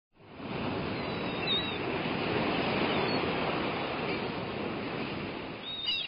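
Ocean surf: a steady wash of breaking waves that fades in over the first half second, with a few faint chirps over it.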